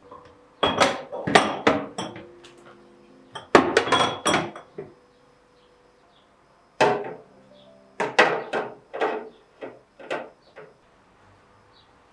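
Kitchenware clattering: dishes, glass and utensils knocked and set down in several quick bursts, some clinks ringing briefly.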